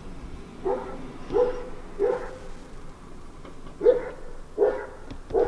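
Police dog barking on its leash: three barks in quick succession, a short pause, then three more.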